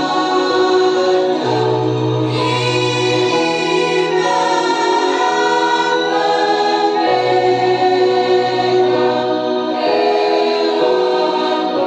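A choir singing a slow song in long held chords, the harmony moving to a new chord every second or two.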